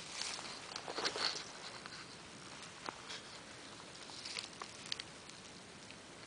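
Dry fallen leaves and grass crackling and rustling under a cat rolling on its back, in two short flurries, the first in the opening second and a half and the second around four and a half seconds in.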